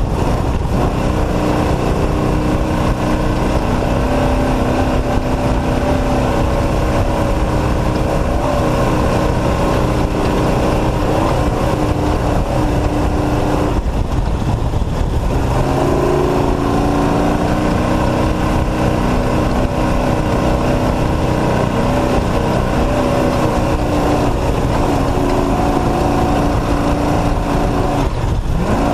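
Off-road race truck's engine running hard at speed, its pitch rising and falling with throttle; it eases off briefly about fourteen seconds in and again near the end before pulling again.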